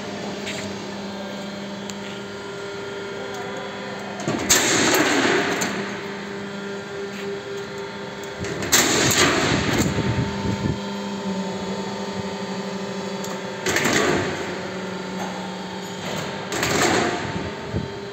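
C&Z purlin roll forming machine running with a steady motor hum, interrupted four times by loud, short rushing bursts from the hydraulic punching and cutting unit.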